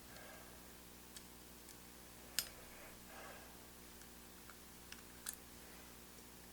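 Faint, scattered clicks and taps of small tools working on a pocket radio's circuit board. One sharp click comes about two and a half seconds in and another about five seconds in, over a steady low hum.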